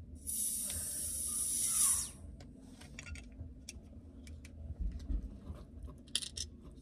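A tall aluminium drink can being pried open by fingernail: a hiss for about two seconds as the tab is lifted, then scattered clicks and scrapes of nails on the metal tab.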